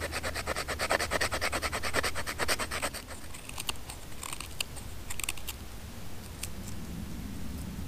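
Knife spine scraping fatwood in quick, even strokes, about six or seven a second, to shave off a pile of fine resinous tinder. The strokes stop about three seconds in, leaving a few scattered lighter scrapes.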